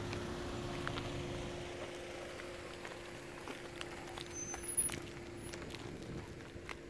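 Steady low hum of a distant engine, fading away near the end, with a few faint clicks and short high chirps.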